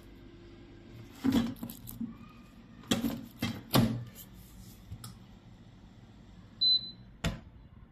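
Plastic basket drawer of a digital air fryer knocking and clicking several times as it is worked in and out of the housing, then a single short high beep from the touch control panel as it is pressed, followed by one more click.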